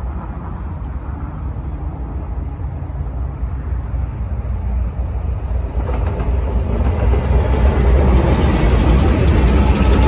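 BNSF freight train's lead diesel locomotives approaching and passing, their low engine rumble growing steadily louder. From about six seconds in, the noise fills out and brightens as wheels and rails come close, loudest near the end as the locomotives draw level.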